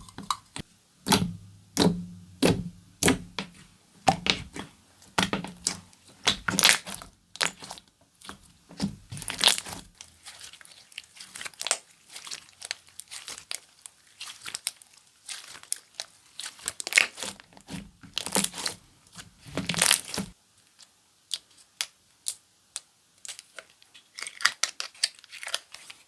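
Marshmallow-style slime worked by hand, stretched, pressed and folded, giving a dense run of irregular crackling and popping clicks.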